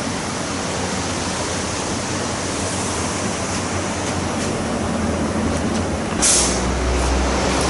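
Steady rushing noise with no clear pitch, like machine or air noise. About six seconds in there is a short, louder rush, followed by a low rumble.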